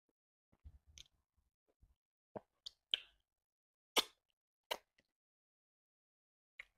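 Close, wet mouth sounds of eating fufu with slimy ogbono soup by hand: a string of short lip smacks and squelches, the loudest about four seconds in as fingers go to the mouth.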